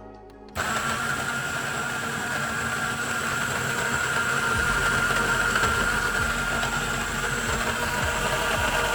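A small electric motor starts abruptly about half a second in and runs steadily with a high whine.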